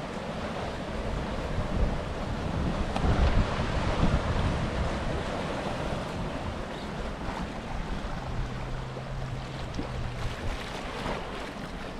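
Wind buffeting the microphone and water rushing past the hull of a sailboat under way. The noise swells about two to four seconds in, and a faint low hum sounds for about two seconds near the end.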